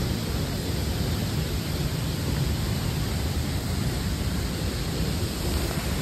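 Tibumana Waterfall's falling water: a steady, even rush, heaviest in the low end.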